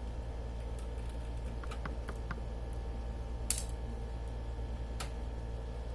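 Scattered light clicks and ticks of a small screwdriver and screws as the motherboard screws are taken out of a laptop, with two sharper clicks about three and a half and five seconds in, over a steady low hum.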